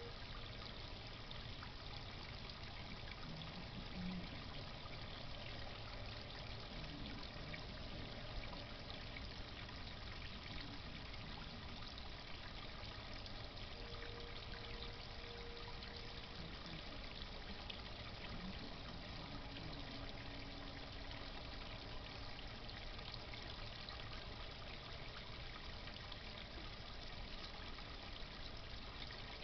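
Steady trickle and pour of water circulated by a garden pond pump, with a few faint, brief hums underneath.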